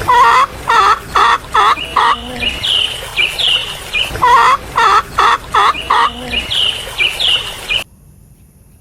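Chicken calling in two loud bouts of rapid repeated notes, each bout a run of lower calls followed by higher, falling ones. The calls cut off abruptly near the end.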